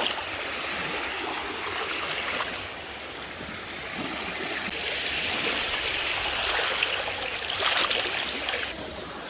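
Shallow seawater washing and splashing: a rushing hiss that swells and ebbs, loudest briefly near the end.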